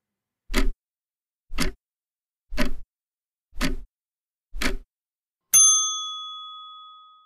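Answer-countdown timer sound effect: five clock ticks, one a second, then a single bell ding that rings out and fades, signalling that time is up.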